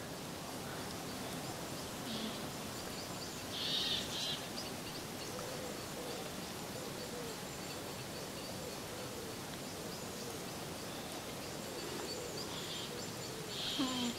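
Alpacas humming softly, a series of short rising-and-falling hums, over a steady hiss of light rain.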